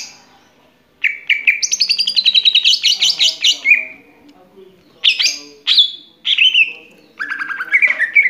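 Cucak ijo (green leafbird) singing loudly: a fast, varied run of chirps and whistles, a pause, a few separate sweeping whistles, then another rapid run near the end.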